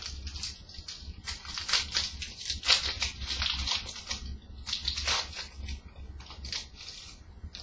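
Crackling and rustling of O-Pee-Chee card pack wrappers, made of a tough papery foil, and of the cards as they are handled, in irregular bursts with a few louder crinkles, over a steady low hum.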